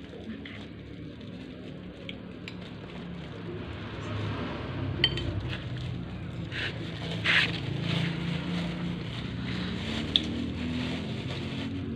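Metal spoons scraping and clinking on plates as people eat, a few sharp clinks standing out, over a low background rumble that grows louder about four seconds in.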